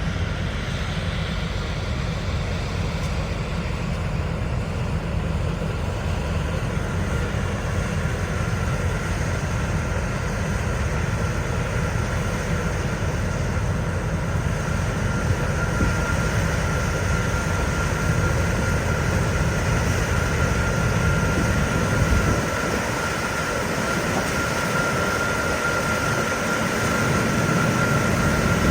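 John Deere 9670 combine running steadily: a constant machinery drone with a thin, steady high whine over it. The deepest rumble drops away for a few seconds about three quarters of the way through, then returns.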